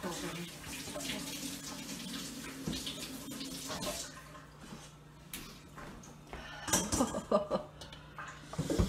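Water running from a kitchen tap for about four seconds. Near the end come a few clatters of a whisk in a stainless steel mixing bowl.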